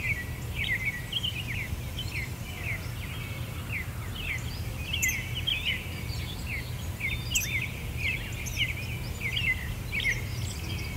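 Birds chirping: a busy stream of short, quick, downward-sliding chirps, over a low steady rumble.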